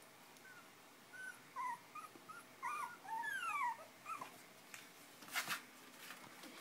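Five-week-old Chinese Crested puppies whimpering and yipping in a string of short, high squeaks while play-fighting, with one longer falling whine about three seconds in. A brief scuffing noise comes near the end.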